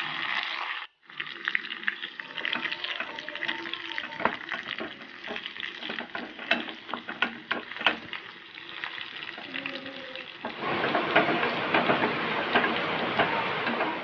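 Sliced shallots, curry leaves and dried red chillies frying in hot coconut oil for a tempering, sizzling and crackling with sharp clicks as they are stirred in the pan. There is a brief break about a second in, and the sizzle turns louder and denser about ten seconds in.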